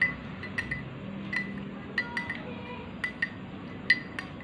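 A spoon stirring in a cup, clinking against its side about a dozen times at an irregular pace, each clink with a short ring, as tamarind pulp and palm sugar are mashed into hot water.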